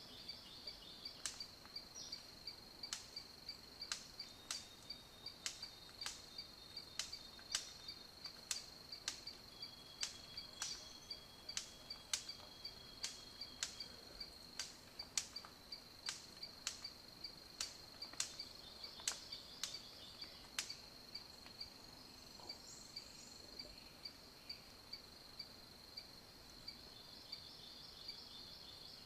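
A steady high-pitched insect trill, with sharp irregular clicks or taps about once or twice a second that thin out after about twenty seconds.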